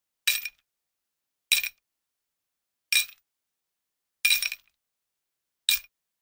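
Five short, bright clinking sound effects, evenly spaced about a second and a half apart, with silence between them.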